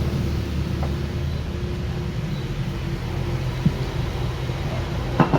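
A steady low engine hum, with a couple of sharp clicks near the end.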